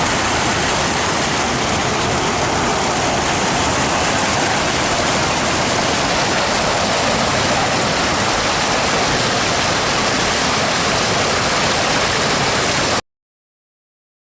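Small waterfall pouring: a steady rush of falling water that cuts off suddenly near the end.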